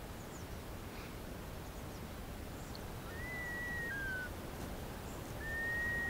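A bird whistling twice, about two and a half seconds apart: each time a long, clear, level whistle followed by a shorter, slightly lower note, the second one near the end.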